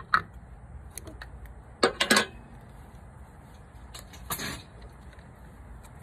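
Close handling noises of wiring and electrical tape being worked around a wire splice: a few sharp clicks and rustles around two seconds in and a brief hiss just past four seconds, over a steady low rumble.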